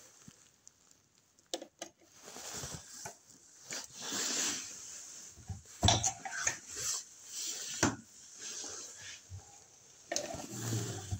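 Metal clicks and clatter from a Lee Load-Master progressive reloading press and its primer feed being worked by hand, with a few sharp clacks, about 1.5 s, 6 s and 8 s in.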